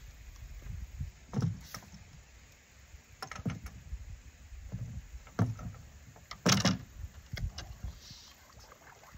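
Irregular knocks and bumps on a wooden dock, with water disturbed as a lost fishing rod is hauled in by a snagged line. The loudest knock comes about six and a half seconds in.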